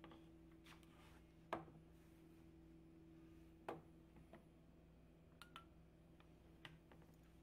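Near silence with a low steady hum, broken by two sharp clicks about two seconds apart and a few fainter ticks as the CNC machine's plastic pendant control box is handled.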